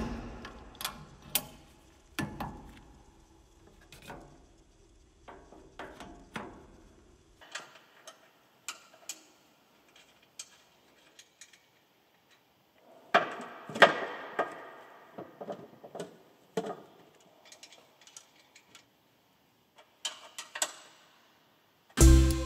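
Irregular metallic clicks, clanks and knocks as a power transmission shaft is slid onto a splined input shaft and its guard is fitted by hand, the loudest cluster of clanks just past the middle. Music starts at the very end.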